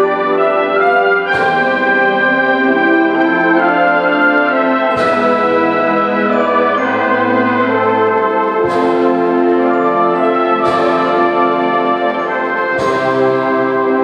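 A high school symphonic band playing held chords, with the brass prominent, punctuated by about five sharp accented hits that ring off.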